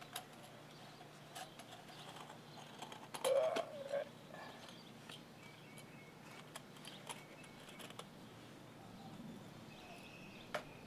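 Faint handling sounds: gloved hands working a small mold in a metal hose clamp, with a few light clicks and one louder, brief wavering sound about three seconds in.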